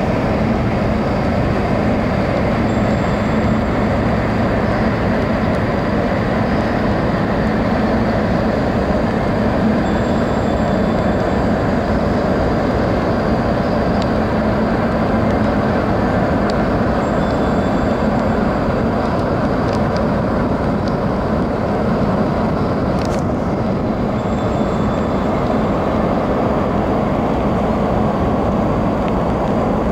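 A large car ferry's engines and thrusters run as it pulls away from its berth: a steady, loud low drone and churning rumble that holds even throughout.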